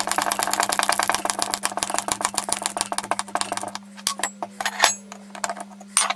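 Fast, scratchy clicking and rubbing from hand work on the metal body of an old hydraulic car jack, thinning to a few scattered clicks after about four seconds, over a steady low hum.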